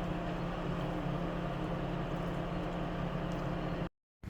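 Steady low hum of a vehicle's engine, even and unchanging, that cuts off abruptly near the end.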